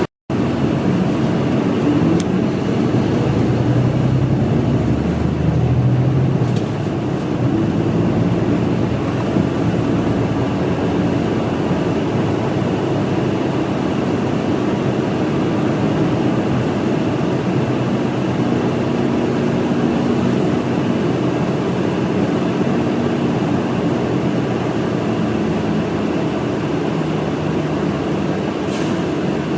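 Diesel city bus driving, heard from inside the cabin: a steady rumble of engine and road noise, with the engine's pitch rising and falling. The sound cuts out for a split second right at the start.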